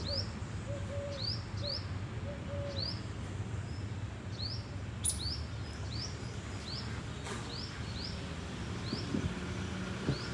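A small bird repeating a short, high, rising chirp about once or twice a second, over a steady low rumble. A few lower-pitched short calls sound in the first three seconds.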